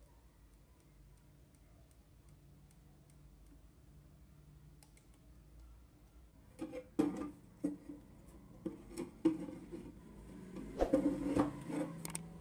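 Hands handling a speaker fitted with a wire coil and an LED bulb: faint, light ticking at first. From about six and a half seconds in comes a run of sharp clicks and knocks, as the bulb's metal cap and the wire ends touch and the speaker frame is moved on the table.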